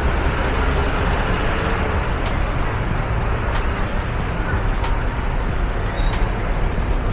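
City street traffic: a steady rumble of engines and tyres from passing vehicles, with a few short, faint high-pitched squeaks.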